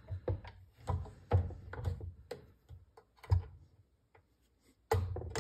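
Light taps of a mallet on a pin punch, drifting out the pins that hold the trigger group in a Remington Model Four rifle's receiver. The taps are irregular: several in the first few seconds, a pause, then another near the end.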